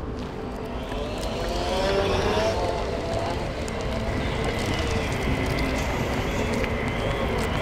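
Electric motor whine of a two-wheeled self-balancing scooter, its pitch gliding up and down as it rides, over a steady low rumble.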